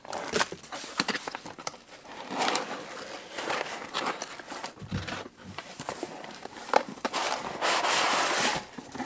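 Cardboard packaging being handled: flaps and inserts scraping and rustling against each other, with scattered light taps and one sharper knock a little before the end.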